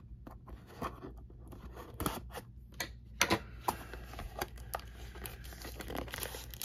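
Fingers picking at and tearing the plastic shrink wrap off a cardboard trading-card blaster box: a string of short scratches, crinkles and clicks, a couple louder about two and three seconds in.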